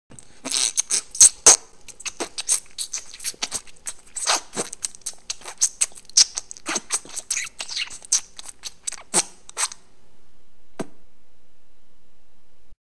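Writing sound effect: quick, irregular scratchy strokes of a pen-like tool drawing lettering, stopping just before ten seconds in, with one lone click a second later.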